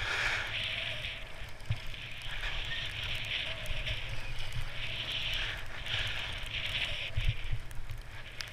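Skis hissing and scraping over packed snow, swelling with each turn, with wind rumbling on the microphone.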